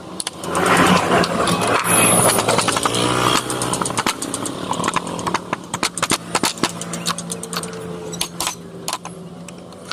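A power tool cutting into wood: a motor hums steadily under a dense, crackling cutting noise. It is loudest for the first few seconds, then eases off.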